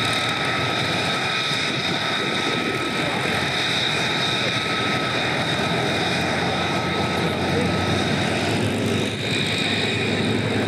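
P-51 Mustang's piston V-12 engine running at a low idle as the fighter taxis, a steady rumble under a constant high-pitched whine.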